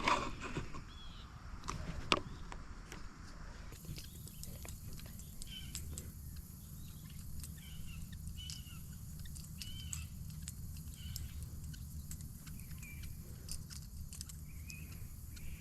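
A bird chirping: short calls repeated about once a second, over a low outdoor rumble with faint clicks.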